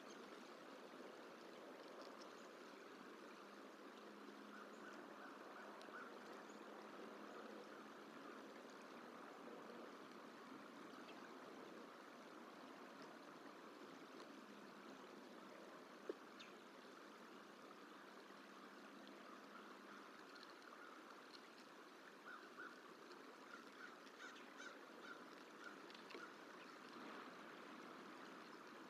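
Faint outdoor ambience: a steady hiss with two runs of short, repeated bird calls, the later run the louder, and a single sharp click about sixteen seconds in.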